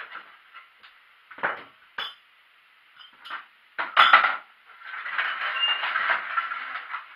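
Metal objects clinking and knocking a few times, then clattering for about two seconds near the end, as tools or parts are handled.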